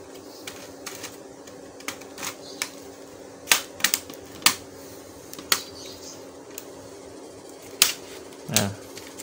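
Sharp, irregular plastic clicks and snaps from the latches of an Asus X42DE laptop's plastic casing as it is pried apart by hand, over a steady low hum.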